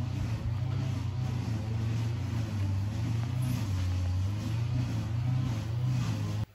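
Motorbike engine idling steadily with a low, even hum that cuts off suddenly at the very end.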